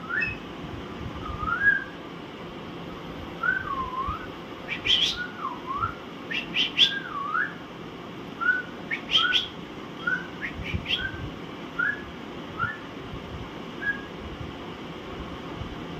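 Alexandrine parakeets calling: a string of short whistled notes that glide up or dip and rise, with a few sharp, shrill squawks mixed in. The squawks are loudest about five to seven seconds in.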